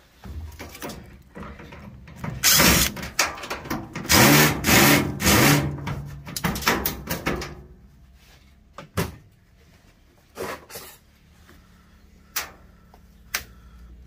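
Hoses and plastic solenoid valves being wrenched and pulled out of a washing machine's top, a busy run of scraping, rattling and clanking with a brief squeak partway through, then a few sharp clicks.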